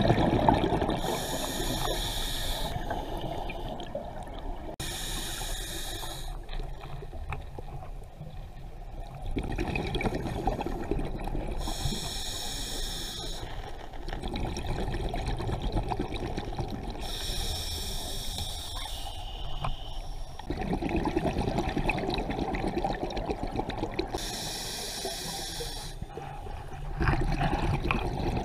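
Scuba diver breathing through a regulator underwater: five breaths, each a short hiss on the inhale followed by a longer run of bubbling on the exhale.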